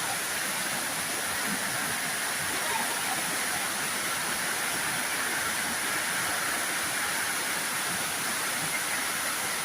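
Steady rushing of water from heavy rain and flooding, an even hiss that does not change.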